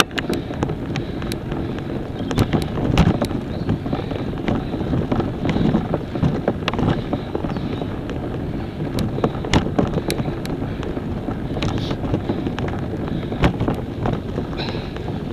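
Wind buffeting an action camera's microphone while moving at about 17–19 km/h, a steady rough rumble, with irregular sharp clicks and knocks of rattling gear over rough ground.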